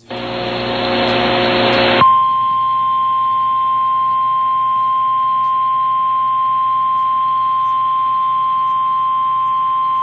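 Emergency Alert System activation on a TV broadcast: about two seconds of noisy static, then the single steady EAS attention tone starts and holds unbroken.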